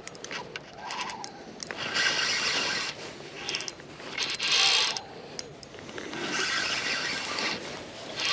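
Fishing reel giving a fast ratcheting whir in three bursts of a second or so each, with scattered clicks between, as a hooked salmon is played.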